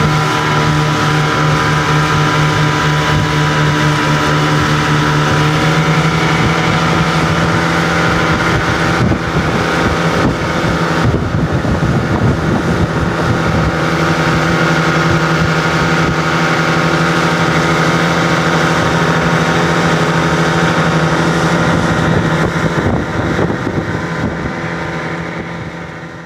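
Outboard motor running steadily at speed, pushing a small boat along, with the rush of water and wind over the boat. The sound fades out near the end.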